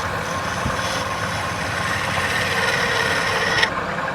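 Wood lathe running steadily, with a tool working the spinning wood that hisses and whines, rising in pitch, then stops abruptly near the end.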